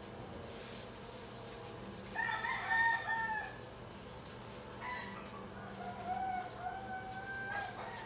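Rooster crowing twice, about two seconds in and again about five seconds in, the second crow longer, over a faint steady hum.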